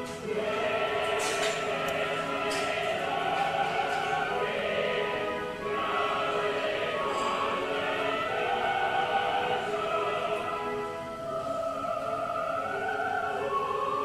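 Opera-style choral singing: several voices holding long, gliding notes.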